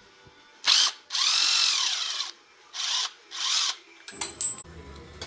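Power drill running in four bursts to back out fasteners: a short blip, one run of about a second that speeds up and winds down, then two quick bursts. A few sharp clicks follow near the end.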